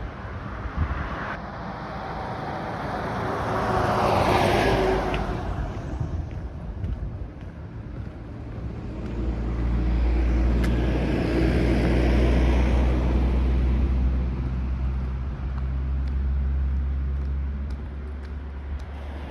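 Motor vehicle sound: a vehicle passes, swelling and fading about four seconds in, then a low, steady engine hum from about nine seconds on.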